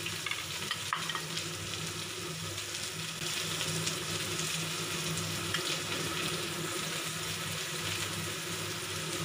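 Freshly added sliced onions sizzling in hot oil in a pot: a steady frying hiss as they begin to cook.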